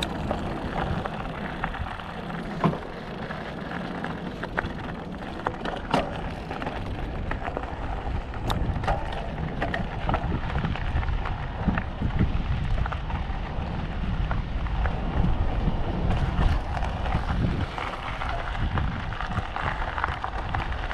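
Mountain bike rolling over rock and grit: a steady low rumble from the tyres, with scattered sharp clicks and rattles from the bike.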